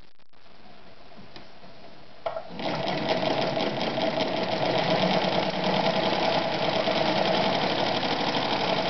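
Soviet Podolsk 142M electric sewing machine sewing a test seam, its needle and shuttle mechanism running in a fast even clatter. It starts with a click about two and a half seconds in and runs at steady speed. The repairer holds the sound up as poor.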